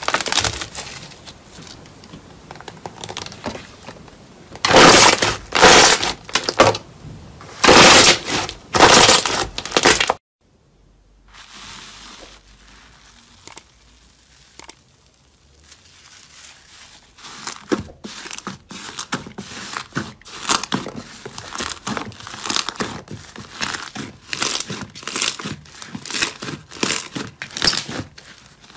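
Close-miked crackling and crunching of a crunchy material being handled. Several loud bursts come in the first third, then after a few quieter seconds a long run of rapid, closely spaced crackles.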